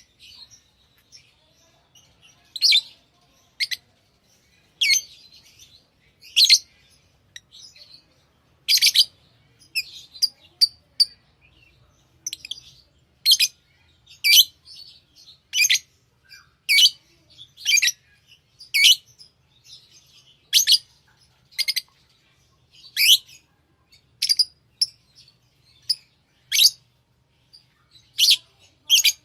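Pet lovebirds chirping: short, sharp, high-pitched calls, one after another at an irregular pace of about one or two a second.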